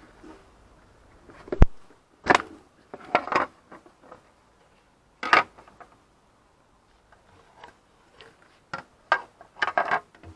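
Hands in rubber gloves handling a motorcycle fuel tank as it is lifted off and its hoses and connectors are pulled off: scattered knocks, clicks and rubbery rustles, with one sharp knock about one and a half seconds in.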